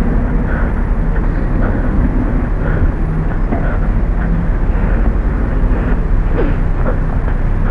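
Loud, steady low rumble of wind and handling noise on a small camera's microphone as its carrier walks, with faint steps about once a second.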